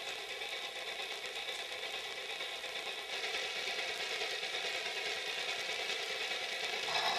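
HO-scale model steam locomotive and freight train running along the track: a steady mechanical running sound of the model's motor and wheels. It grows a little louder about three seconds in and again near the end.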